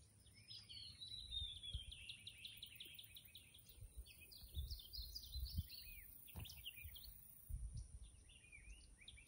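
A songbird singing fast runs of high chirps, first a falling run of rapid notes and then a more varied twittering, fading out about seven seconds in with a few more chirps near the end. A faint, uneven low rumble lies underneath.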